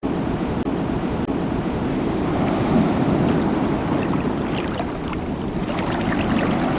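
Sea waves washing, a steady low rushing, with scattered small clicks and knocks from about three and a half seconds in.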